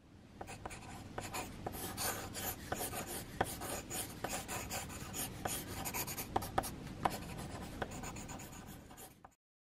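Pencil lead scratching on paper in short sketching strokes, with small sharp taps of the tip landing on the page, from a mechanical pencil drawing a cat's face. The scratching fades in at the start and stops shortly before the end.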